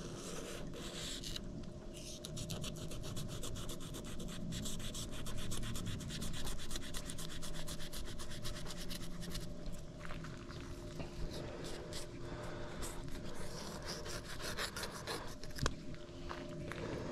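Knife rasping and scraping through the sandpaper-rough skin of a fine tooth shark as it is filleted. A dense run of quick scraping strokes eases off about ten seconds in into slower, scattered strokes, with a sharp click near the end, over a steady hum.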